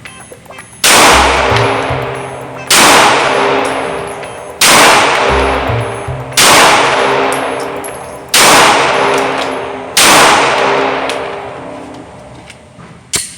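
Six single 9mm pistol shots from a Springfield Armory Hellcat Pro, fired at a slow, deliberate pace about two seconds apart, each a sharp crack that rings and fades away over a second or more.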